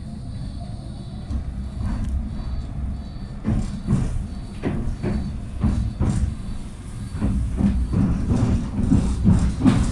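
Tram heard from inside the passenger car, running with a steady low rumble. From about three and a half seconds in, a string of irregular knocks from the wheels on the track comes in, growing louder toward the end.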